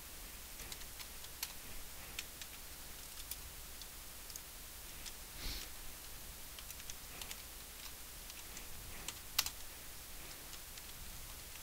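Computer keyboard keys and mouse buttons clicking faintly and irregularly as Blender shortcuts are entered, with one sharper click about nine seconds in.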